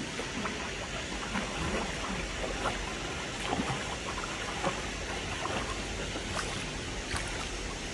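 Stream water running over rocks, a steady rush with scattered small gurgles and splashes.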